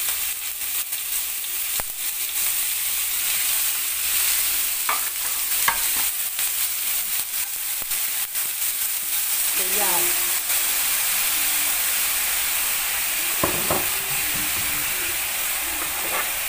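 Diced beef sizzling in hot oil in a nonstick wok, the sizzle jumping up as the meat goes in at the start. A wooden spatula scrapes and taps against the pan as the meat is stirred.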